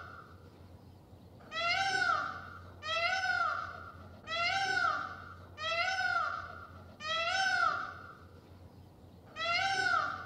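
Peacock (Indian peafowl) giving its loud, meow-like call again and again: six wails, each rising then falling in pitch and lasting about a second, one to two seconds apart, with a longer pause before the last one near the end.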